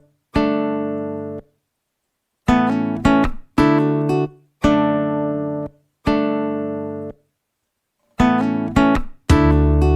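Background music: strummed acoustic guitar chords, each left to ring for about a second and then cut to silence before the next.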